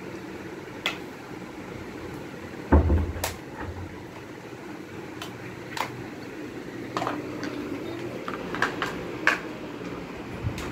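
Plastic washing-machine parts being handled: scattered light clicks and knocks, with one heavier thump about three seconds in, over a steady low hum.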